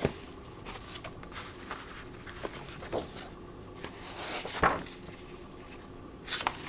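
Pages of a large hardback book being turned by hand: soft paper rustles and handling sounds, with louder page flips about four and a half seconds in and near the end.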